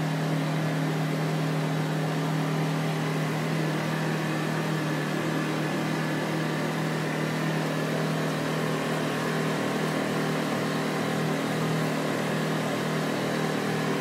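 Steam cleaning machine running steadily: a constant low hum with a broad hiss of the steam jet as it sprays mud and salt off a pickup truck's painted body panel.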